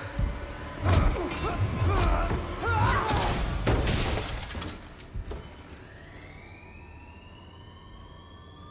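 Film sound of a spaceship crash: heavy impacts, crashing and shattering debris and a wavering screech for about five seconds. It then drops to a low rumble under a thin whine that slowly rises in pitch.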